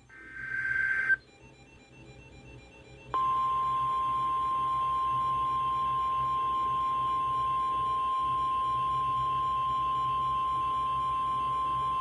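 NOAA Weather Radio alert as received over the radio: a short burst of digital SAME header data, then about two seconds of faint hum, then the steady 1050 Hz warning alarm tone starting about three seconds in and holding for about nine seconds. This tone announces an urgent alert, here a tornado watch.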